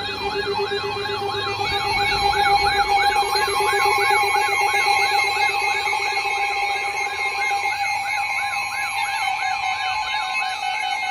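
Electronic warbling siren tone that starts abruptly, its pitch sweeping up and down about three times a second, with a steady lower tone underneath that stops about two-thirds of the way through.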